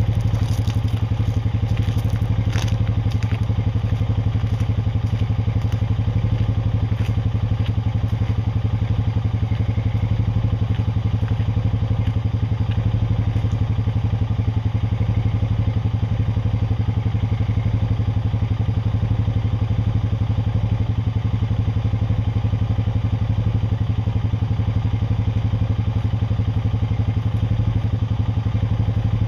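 Honda Rancher ATV's single-cylinder engine running steadily at low, even speed, with a few light knocks and clicks in the first few seconds.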